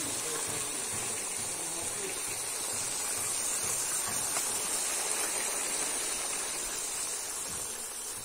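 Duck meat sizzling in a hot iron wok: a steady hiss.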